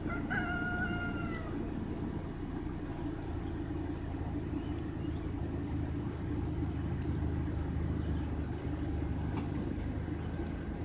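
Steady low rumble of a vehicle engine running. Near the start there is a short animal call, held on one pitch for about a second.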